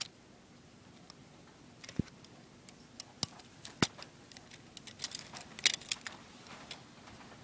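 Plastic clicks and taps of a Lego-built butterfly knife being handled, its pieces knocking together. They come as scattered single clicks a second or so apart, with a small cluster a bit past the middle.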